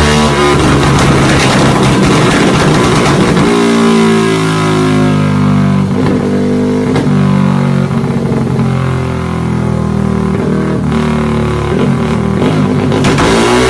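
Yamaha underbone motorcycle engine running at high revs on a dyno through an aftermarket exhaust, its rear wheel driving the roller. The pitch holds fairly steady, then rises and falls near the end.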